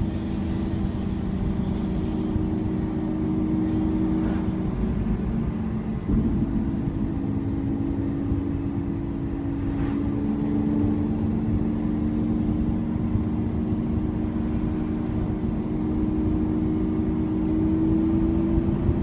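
Lamborghini Aventador's V12 engine heard from inside the cabin while driving, a steady drone over road and tyre noise. The pitch drops about four to five seconds in, a short jolt comes about six seconds in, and then the engine note climbs slowly through the rest.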